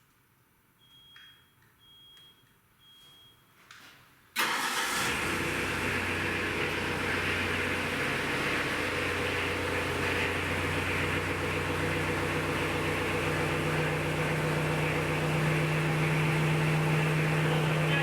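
Three short electronic beeps, then the excavator's diesel engine starts abruptly about four seconds in and keeps running steadily at idle.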